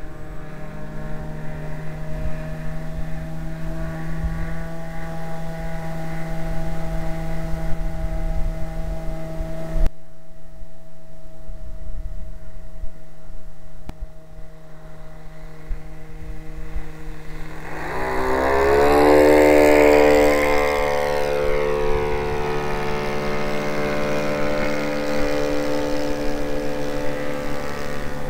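Radio-controlled model airplane engine running steadily. About 18 seconds in, a model plane passes close: its pitch climbs, it is loudest around 20 seconds in, and then its pitch drops as it moves away.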